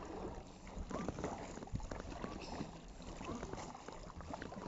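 Kayak paddle working through the water: irregular small splashes and drips as the blade dips and lifts, over a steady low rumble.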